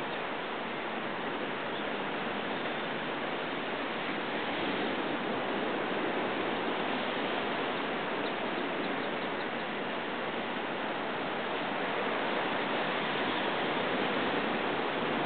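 Steady rush of ocean surf washing over a rocky shoreline, swelling slightly now and then.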